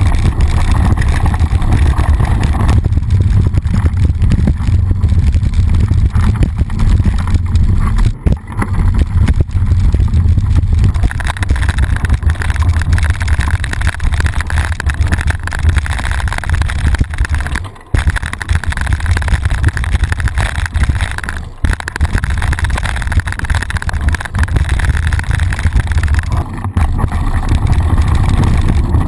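Loud wind buffeting and rumble on an action camera riding on a mountain bike as it descends a dirt flow track. The noise dips briefly a few times.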